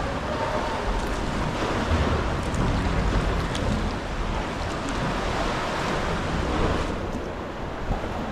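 Sea swell washing and sloshing against sea-cliff rock and a sea kayak's hull as the kayak is paddled, with some wind on the microphone.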